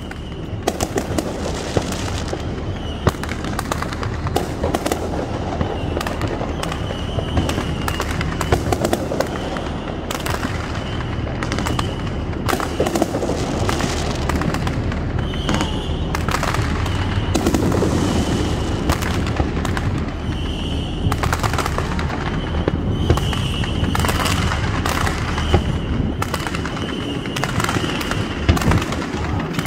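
Aerial fireworks going off continuously: booms and crackling reports one after another without a break.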